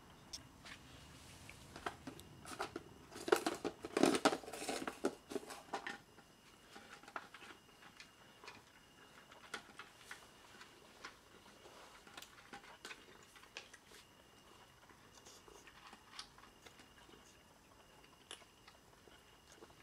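A mother cat and kitten crunching dry kibble: irregular crunching clicks, dense and loudest for a few seconds near the start, then sparse chewing crunches.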